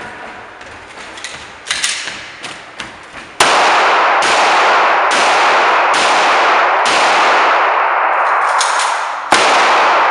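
A pistol fired in a quick series of shots, roughly one a second from about three seconds in, each shot's crack running into a long ringing echo that fills the gaps. A few light clicks and knocks of handling come before the first shot.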